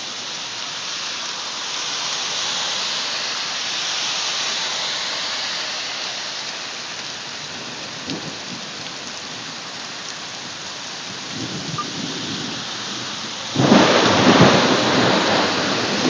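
Steady heavy rain hiss. A low rumble of thunder builds about three-quarters of the way through, then a sudden loud thunderclap near the end rolls on.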